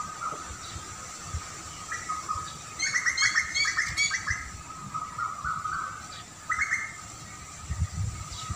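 Wild songbird chirping: a quick run of chirps about three seconds in and a shorter burst about six and a half seconds in, over a steady faint tone, with a few low rumbles near the end.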